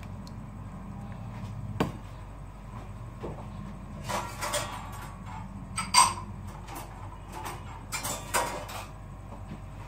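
Kitchenware being handled: scattered knocks and clinks of a cooking pot and a glass serving bowl being moved and set down on a counter, the loudest a ringing clink about six seconds in.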